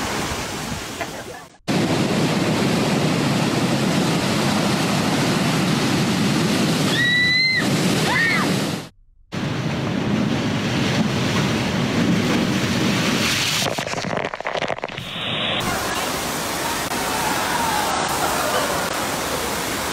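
Ocean waves breaking and surf churning, with wind on the microphone, cut twice by brief silences; a short high squeal sounds about seven seconds in. Near the end comes the steady rush of water pumped over a surf-simulator ride.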